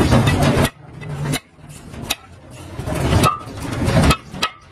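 Hammer striking a steel punch to drive old rivets out of a truck's drum-brake shoe so the worn lining can be replaced: sharp metal strikes. Louder stretches of rough noise come between them, one swelling for about two seconds before cutting off near the end.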